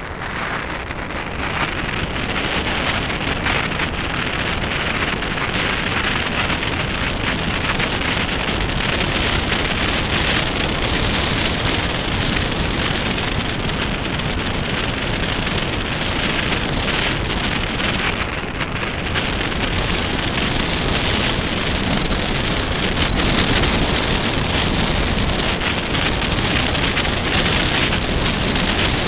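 Mountain bike tyres rolling over a loose gravel track: a steady crunch of stones full of small crackles, with a low rumble of wind on the microphone.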